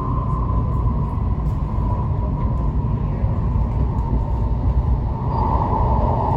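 Cabin noise of a Tokaido Shinkansen train running: a steady low rumble with a hiss over it that gets louder about five seconds in.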